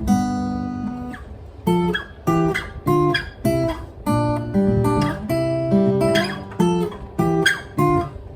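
Cort L710F acoustic guitar being strummed: one chord rings out for about a second and a half, then a rhythmic run of short strummed chords follows, about two a second, with some bent or slid notes.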